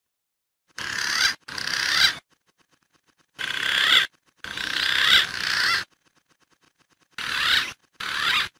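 Recorded green pigeon (punai) lure calls: wavering whistled calls in six short bursts, grouped in pairs, each starting and stopping abruptly with dead silence between.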